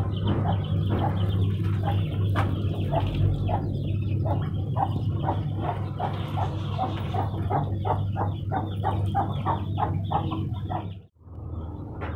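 Domestic chickens clucking, short calls repeated several times a second, over a steady low hum; the sound cuts out briefly near the end.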